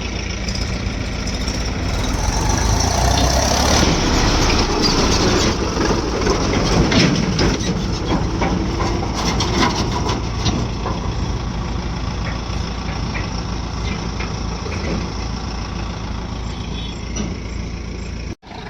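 Backhoe loader's diesel engine running under load while it works, louder for several seconds with some clatter, then settling back to a steady run. The sound drops out for a split second near the end.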